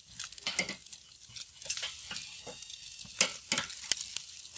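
Pork ribs sizzling on the hot grate of a charcoal kettle grill as they are turned over with metal tongs, with scattered sharp clicks and scrapes of the tongs against the grate.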